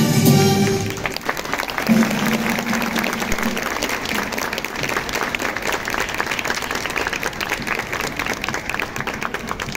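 Many hands clapping fast and continuously over a quieter marinera norteña track, after the louder music drops away about a second in.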